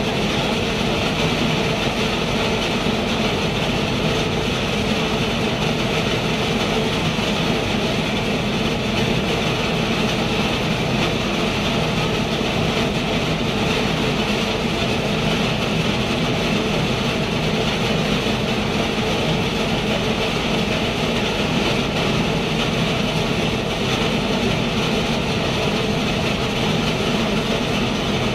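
Vertical wood powder mill running steadily: a loud, constant hum with a strong hiss that never changes in level.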